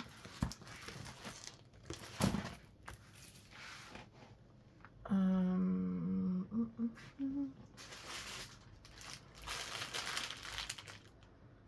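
Plastic packaging crinkling and rustling as diamond-painting kit items are handled, with a woman humming one steady note for about a second and a half about five seconds in, then two short hums.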